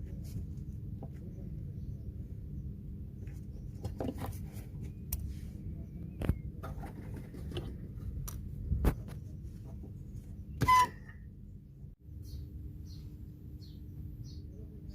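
Scattered metal clicks and knocks of hand tools working on a refrigeration compressor's mounting screws, the loudest about eleven seconds in, over a steady low hum.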